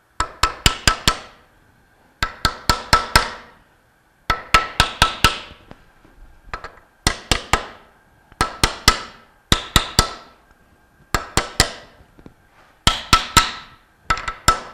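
Claw hammer tapping a metal pipe used as a driver to press a new ball bearing onto a Bell & Gossett Series 1510 pump shaft held in a vise. The taps come in quick bursts of four to six, a burst about every one to two seconds, each with a metallic ring.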